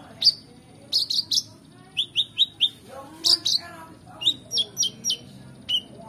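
Male Van Hasselt's sunbird (kolibri ninja) singing: quick runs of sharp, high chirps that fall in pitch, several notes in a row, with fainter lower warbling notes between the runs.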